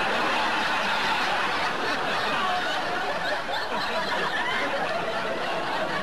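Audience laughter, many voices at once, breaking out suddenly and carrying on loudly before easing slightly toward the end.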